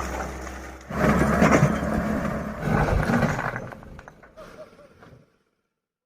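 Excavator engine running with clanking metal noise, in surges that fade out and then cut to silence near the end.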